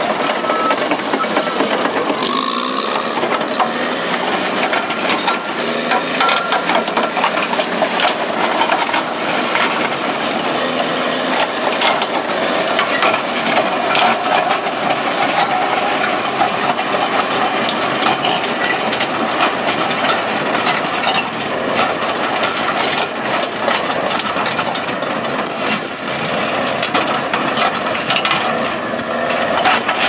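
Caterpillar D6R crawler dozer working, its diesel engine running under load while the steel tracks clank and the rear ripper tears through stony ground, with a constant rattle of knocks and crunching stones.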